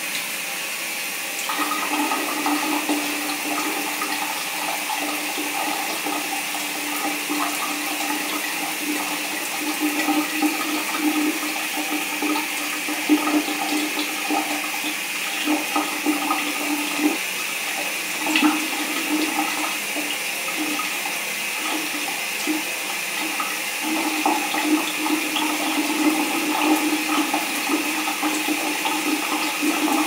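Shower running: a steady hiss of spray, joined about a second and a half in by the uneven splashing of water landing, which swells now and then.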